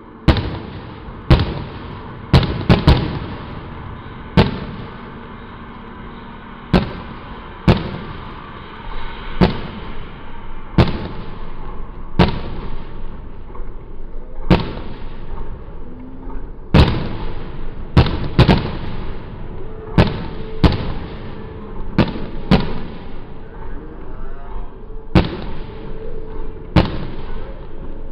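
Aerial firework shells bursting overhead: a sharp bang every second or two, some in quick pairs, each trailing off in an echo.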